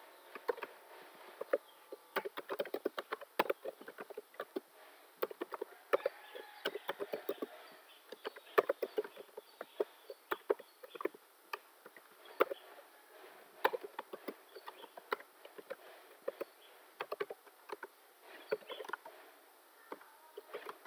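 Computer keyboard typing: irregular runs of quick key clicks broken by short pauses, with some single louder keystrokes.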